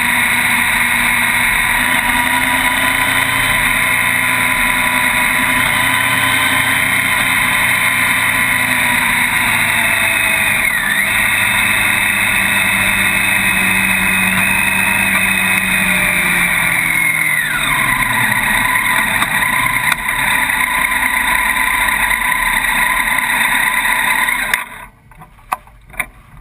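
Motorcycle engine running with heavy wind rush over the bike-mounted camera. The engine pitch dips briefly about ten seconds in and falls about two-thirds of the way through as the bike slows. Near the end the sound drops away abruptly, with a couple of short knocks.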